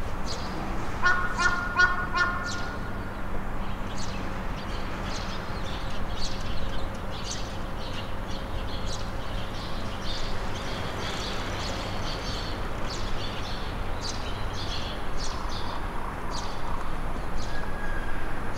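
Birds chirping again and again in short calls over a low steady hum, with a harsh honking call about a second in.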